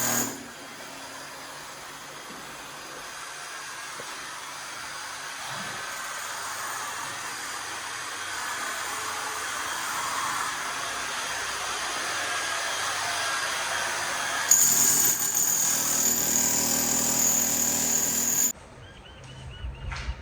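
Electric power tool breaking out a wall, running hard with a steady high whine, then cutting off abruptly near the end.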